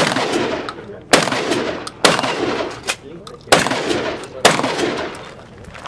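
Shotgun fired five times at an uneven pace, each loud shot followed by a ringing tail.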